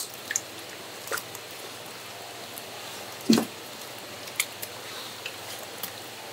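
Wet seafood being handled, with scattered squelches and drips and one louder wet slap about three seconds in.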